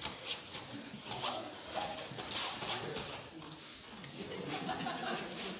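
Short rasping scrapes and scuffs of bare feet sliding on foam grappling mats as two wrestlers hand-fight standing, with faint voices in the background.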